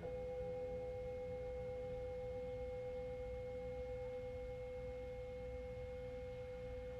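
Sound-healing music: a single singing-bowl tone begins sharply and is held steady, with a fainter higher overtone above it and a low rumble beneath.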